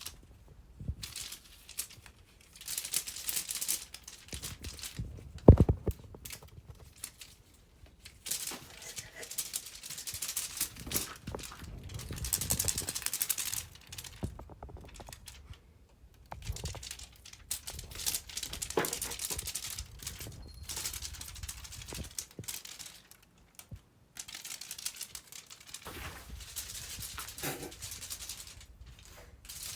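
Irregular crinkling and rustling, as of plastic or paper being handled, on and off, with one sharp thump about five and a half seconds in.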